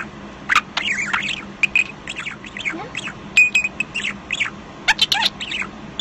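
A male budgerigar chattering in a fast stream of warbling chirps, clicks and squeaky squawks, with a brief held whistle midway. Within the chatter it twice mimics the phrase "whatcha doing?" in its tiny scratchy voice.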